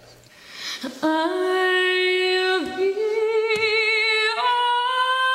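A woman's voice singing unaccompanied, long held notes in a vocal warm-up. It starts about a second in, dips and swings back up in the middle, and steps up to a higher note with vibrato about four seconds in.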